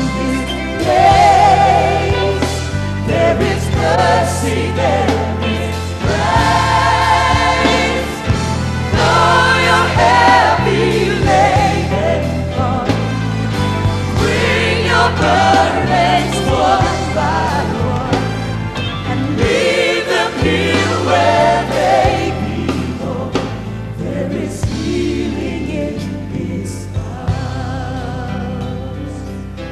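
Live gospel music: voices and a choir singing with wavering, drawn-out notes over sustained low instrumental backing, getting somewhat softer near the end.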